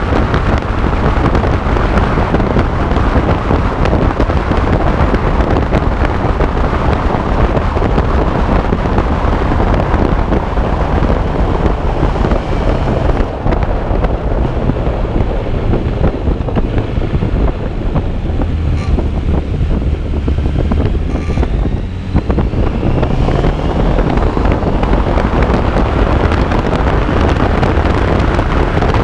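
Wind rushing over the microphone of a Suzuki Bandit motorcycle ridden at road speed, with the engine running underneath. The rush eases about halfway through as the bike slows, then builds again as it speeds back up.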